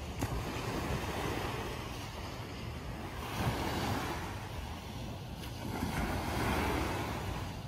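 Small waves breaking and washing up on a sandy beach, the surf swelling and easing in slow surges, with wind rumbling on the microphone.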